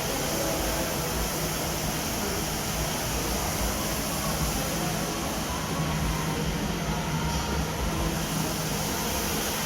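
ICE I20 walk-behind wet floor scrubber running steadily: a constant machine hum under an even rushing noise.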